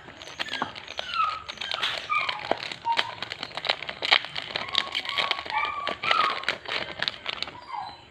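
Foil booster packs crinkling and trading cards being handled, with many small rustles and clicks. Short high whines from an animal come through several times over it.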